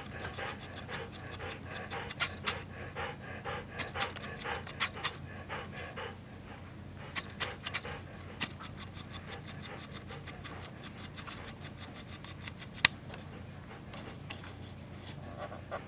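Dog panting in quick, even breaths, strongest over the first six seconds and softer after. One sharp click about thirteen seconds in.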